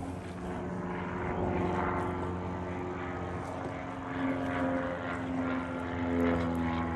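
An engine droning steadily, a low hum with several even tones that drift slightly in pitch and swell a little from about four seconds in.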